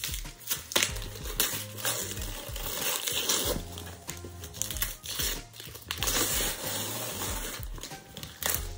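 Packaging crinkling and tearing as a boxed iPad Smart Keyboard is unwrapped by hand, over background music with a steady bass beat.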